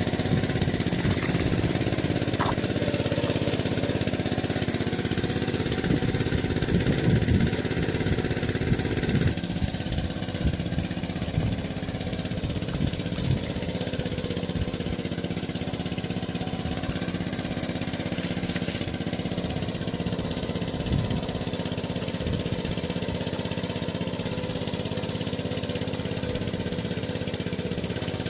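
A small engine running steadily, with a slight change in its tone about nine seconds in.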